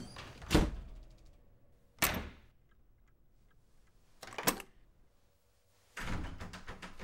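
A door being banged on or shaken: four separate sharp bangs about every one and a half to two seconds. The third comes as a quick double hit, and the last is longer and trails off in a rattle.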